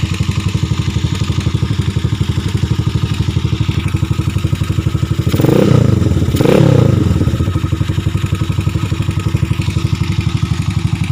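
Gamma 200 motorcycle engine idling with a steady pulsing beat through an aftermarket SC Project muffler with its silencer insert fitted. About five and six seconds in it is revved twice in short blips that rise and fall.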